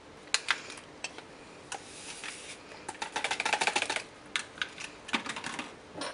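A metal teaspoon clinking and scraping against ceramic mugs and a hot chocolate tin as mix is spooned out. There are a few separate clinks, then a quick run of rapid taps about three seconds in, and scattered clinks after that.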